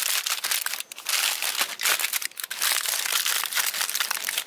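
Aluminium foil crinkling and crackling as it is folded and rolled by hand into a pouch around vegetables, an irregular run of sharp crinkles with a short pause a little under a second in.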